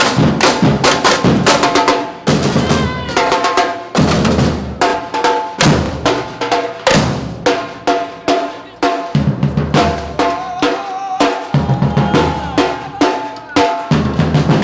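Street drum band playing a fast, driving rhythm on snare and bass drums, with rimshots and rolls. Pitched notes sound over the drumming at times.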